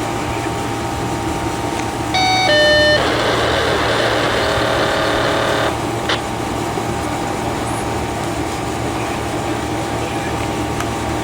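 Diesel fire engine idling steadily. About two seconds in, a couple of short electronic tones sound, then a louder noisy, tonal sound for about three seconds that cuts off suddenly, followed by a single click.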